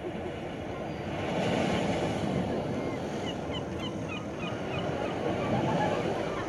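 Outdoor street background: a steady low murmur of crowd and traffic noise, with a run of short high chirps about halfway through.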